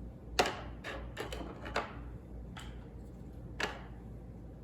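Small plastic toy chairs being set down into a plastic dollhouse: about six sharp clacks at irregular intervals, the loudest about half a second in.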